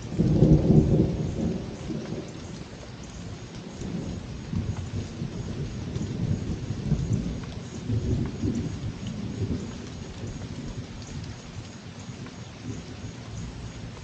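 Thunder rumbling: a loud peal about half a second in, then lower rolling rumbles for several seconds, over a steady hiss of rain.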